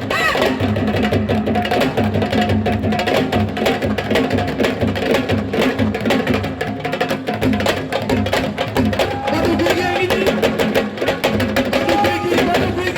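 Sabar drums playing a fast, dense rhythm of sharp strokes.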